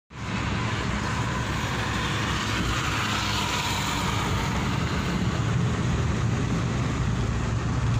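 Steady road noise inside a moving car's cabin: a low rumble of engine and tyres under an even hiss of air.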